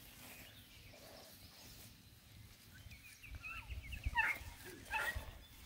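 Black and Tan Coonhound puppy giving faint short whines and yips while it plays, starting about three seconds in, the last two falling in pitch.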